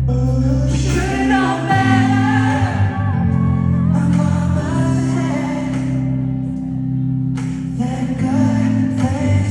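Live pop band music with singing, played through a concert hall's sound system; a vocal line bends up and down between about one and three seconds in.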